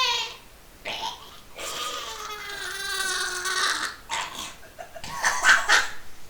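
A woman's high-pitched, wordless vocal sounds. A short squeal comes at the start, then a long drawn-out wail-like call about 1.5 seconds in, and breathy bursts near the end, in the manner of laughing or mock crying.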